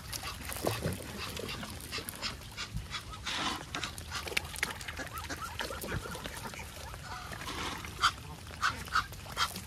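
Animal calls: a few short, sharp calls in quick succession near the end, among scattered clicks.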